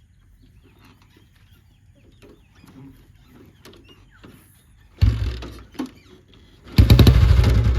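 Motorcycle engine starting: two loud coughs about five seconds in, then it catches and runs with a fast even beat near the end. Faint bird calls before it.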